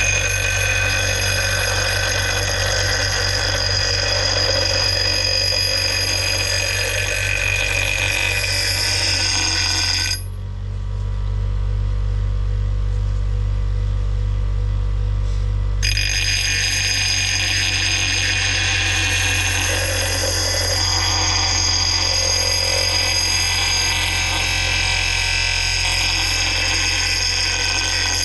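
Electric bench grinder running with a steady low motor hum while an axe blade is ground on its abrasive wheel: a high, ringing screech of steel on the wheel. The screech breaks off after about ten seconds, leaving only the motor for about five seconds, then a second long grinding pass follows.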